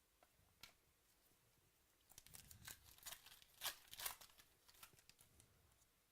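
Faint crinkling and tearing of trading-card packaging being handled, a cluster of short rustles peaking about four seconds in, after a single soft click.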